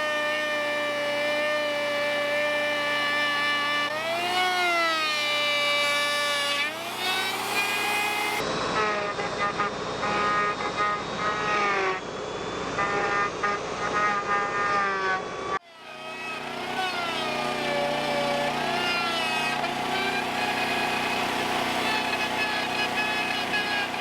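Tractor engine running under load with a steady high whine that swells up in pitch and settles back now and then. The sound cuts abruptly twice as the shots change.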